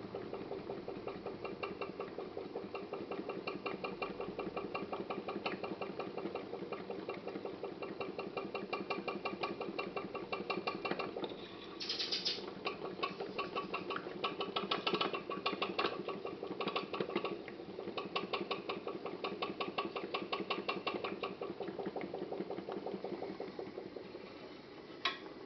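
Homemade putt-putt (pop-pop) boat engine running: a water-filled quartz-tube boiler capped with a thin silicone eyedropper bulb as the diaphragm pulses in a rapid, steady putt-putt rhythm. The rhythm drops out briefly a little before halfway, with a short hiss, then resumes. One sharp click near the end.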